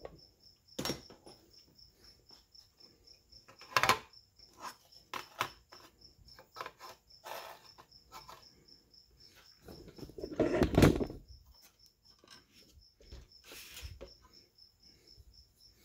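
Plastic model truck cab bodies being handled and turned over on a cutting mat: scattered light clicks and taps, with a louder bump about eleven seconds in. A faint, high, evenly pulsed chirping runs underneath.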